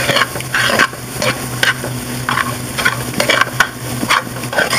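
Metal utensil stirring and scraping a flour-and-butter roux around a metal sauté pan, in short strokes about two or three a second, over a light sizzle of the mixture frying. A steady low hum runs underneath.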